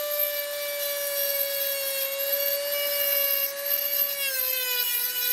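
Budget handheld tungsten sharpener's small electric motor running with a steady whine while a tungsten electrode is ground against its spinning disc through an angle-guide hole. The pitch drops slightly about four seconds in.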